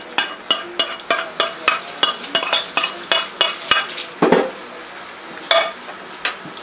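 A metal utensil knocking against a cooking pan in a quick, even rhythm of about three strikes a second, each with a short metallic ring. After about four seconds it thins to a couple of separate knocks.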